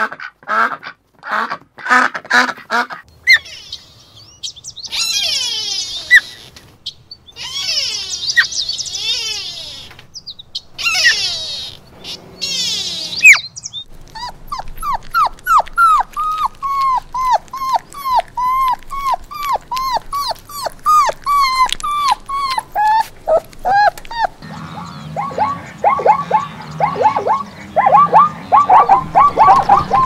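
Domestic geese calling for the first few seconds, then young puppies whimpering and whining in high, thin cries, followed by a long run of regular yips at about two a second. Near the end, a different animal's quick, repeated calls take over.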